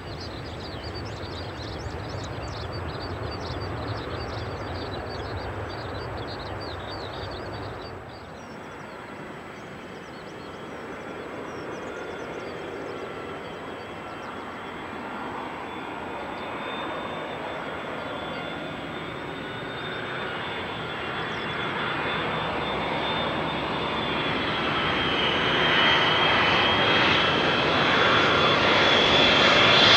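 Turbofan engines of a FedEx Airbus A310-300 freighter (Pratt & Whitney PW4152s) on final approach: a steady high whine over jet noise that grows steadily louder as the aircraft comes closer. For the first several seconds, before a cut, the duller, lower rumble of a Boeing 777 rolling out on the runway after landing.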